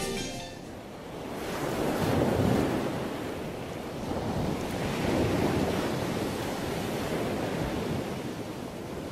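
Sea water rushing along a moving ship's hull, with wind on the microphone. The rush swells about two seconds in and again about five seconds in.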